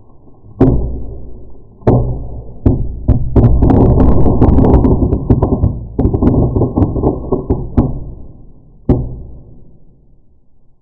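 A firework going off in a string of deep, booming bangs: several single blasts, then a dense run of rapid crackling bangs lasting a few seconds, and a last bang near the end that dies away.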